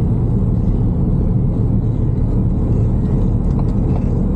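Steady low rumble of a car driving along a city road: engine and tyre noise.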